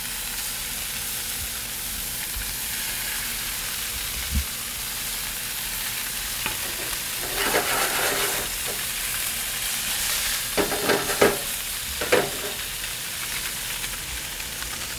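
Salt-and-pepper mullet fillets sizzling in hot oil in a nonstick frying pan, a steady hiss. Short louder bursts of sizzle come several times in the second half as more fillets go into the oil.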